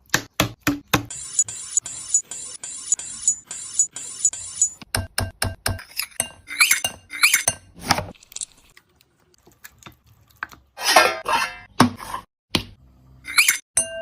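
Kitchen clinks and knocks, like utensils striking dishes and pans, in quick separate strokes, with a stretch of high ringing in the first few seconds and a quiet gap past the middle.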